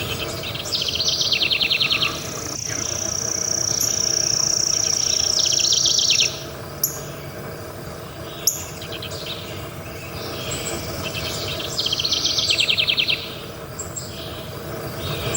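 Forest birds singing: bursts of rapid chirping trills and one long, steady high whistled note lasting about four seconds. Two short sharp clicks come in the middle.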